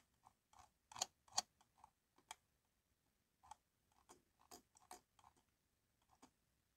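Near silence broken by faint, irregular clicks from computer input, such as a mouse or keys. The two loudest clicks come about a second in, with scattered softer ones after.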